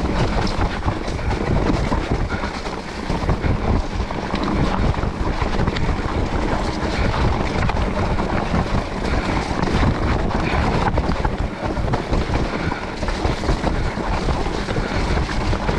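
Specialized Turbo Levo electric mountain bike riding down a wet, muddy, rooty trail: a steady rush of tyre and trail noise with constant rattling and knocking from the bike over the bumps.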